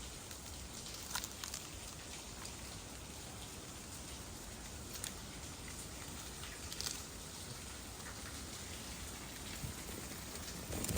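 Running water of a waterfall: a steady, even rush, with a few faint clicks now and then.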